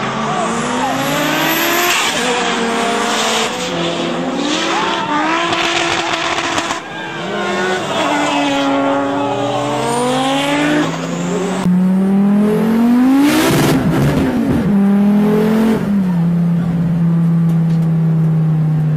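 Drift car's engine revving up and down over and over, with tyre squeal as it slides sideways. Near the end the sound changes to a steady engine note at constant revs, heard from inside the cabin.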